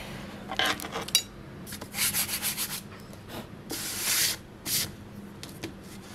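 Paper handled on a desktop: several short rustling, scraping bursts, the longest about two seconds in and again about four seconds in.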